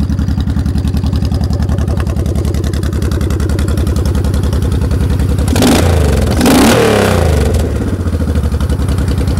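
2005 Honda VTX1800R's liquid-cooled V-twin running at an even idle through Rinehart Racing aftermarket exhaust, revved twice in quick succession a little past halfway, each rev rising and dropping back to idle.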